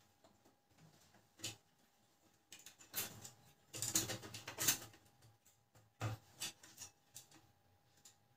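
Clicks, knocks and rattling of a disassembled Canon LBP 2900 laser printer's parts being handled during repair. There is a single knock about a second and a half in, a busy stretch of rattling from about three to five seconds in, and a few more clicks near six seconds.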